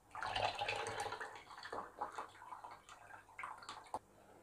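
Fermented coconut liquid and pulp poured from a glass jar into a mesh filter bag over a plastic jug, splashing and trickling. The pour is strongest for about the first second and a half, then fades into smaller trickles and handling noises of the bag, with a sharp click near the end.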